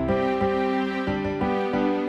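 Instrumental background music: a melody of held notes changing about every half second over a low bass line.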